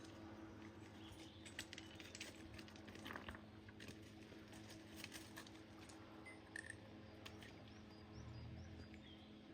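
Faint, irregular clicks and rustles from a large pig moving about and rooting close by.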